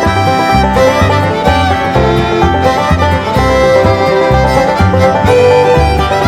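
Upbeat bluegrass-style background music with fiddle and banjo over a steady bass beat.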